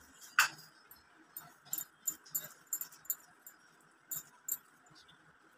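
Irregular soft wet squelches and clicks of a hand rubbing ginger-garlic paste into raw chicken pieces in a steel plate, the loudest about half a second in, with a short lull a little past the middle.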